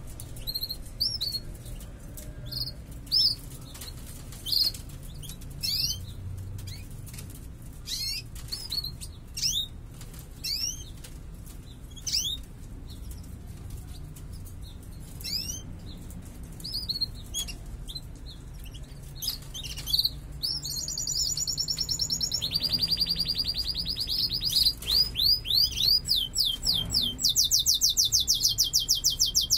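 Domestic canaries in cages giving short, scattered chirps over light fluttering and clicks. About two-thirds of the way through, one bird breaks into full song: fast, evenly repeated trilled rolls that run on loudly to the end. This is the strong song of canaries in breeding condition.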